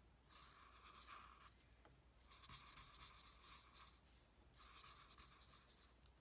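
Faint scratching of a felt-tip marker drawing on paper, in three separate stretches of strokes as the giraffe's eyes are drawn.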